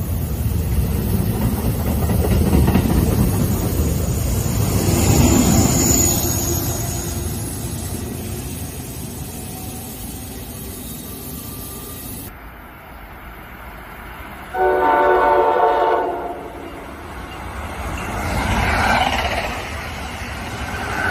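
NJ Transit bilevel commuter coaches rolling past along the platform, their rumble fading away. An approaching Amtrak train then blows its horn once, one chord for about a second and a half, and passes at speed with a rising rush of wheel and air noise.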